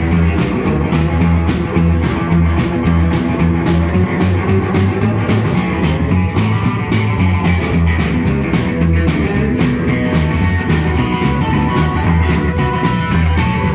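Rockabilly band playing live through an instrumental stretch: upright double bass, a drum kit keeping a steady beat, acoustic rhythm guitar and electric guitar.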